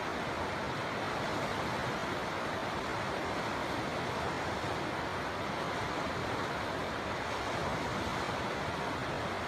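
River water flowing, a steady, even rush of running water.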